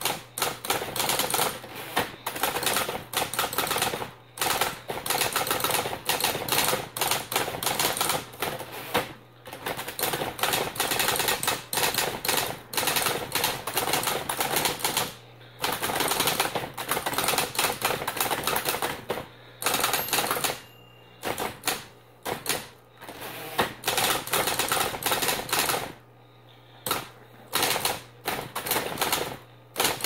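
Smith-Corona Electra C/T electric typewriter being typed on quickly: a rapid run of typebar strikes, broken by short pauses every few seconds, over the steady hum of its continuously running motor.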